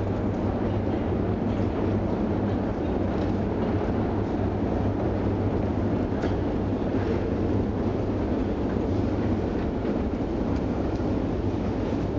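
Long metro escalator running: a steady low mechanical rumble and hum, with a few faint clicks.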